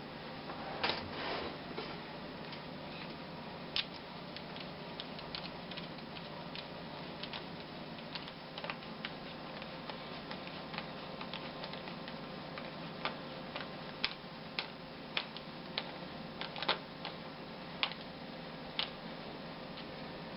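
Irregular sharp ticks and clicks over a steady low hum while a homemade electric soldering iron heats up to red heat. The ticks come sparsely at first and more often in the second half.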